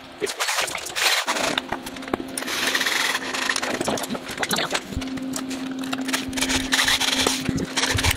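Cordless drill running in bursts as the couch's metal mounting brackets are fastened to a wooden deck, with knocks and clicks of hand tools.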